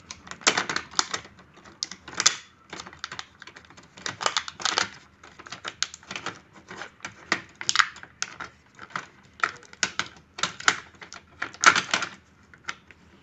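Stiff clear plastic blister packaging crackling and crinkling in quick, irregular clicks as it is pulled off new inkjet print-head cartridges; it stops shortly before the end.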